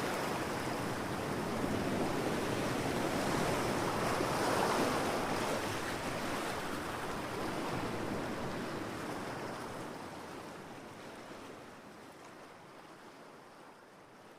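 Ocean waves breaking on a beach: a steady wash of surf that swells a few times, then fades away over the last few seconds.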